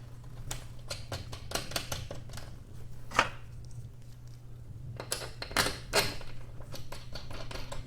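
Scattered metallic clicks and clinks of bolts being fitted by hand into a garage door torsion spring's mounting, with a few sharper knocks about three, five and six seconds in.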